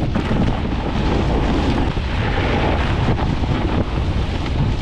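Loud, steady wind noise buffeting the microphone of a camera carried by a snowboarder riding down a run.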